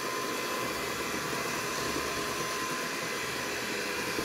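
Electric stand mixer running steadily, its beaters mixing oil, eggs and sugar in a stainless steel bowl: an even motor whir with a constant high tone.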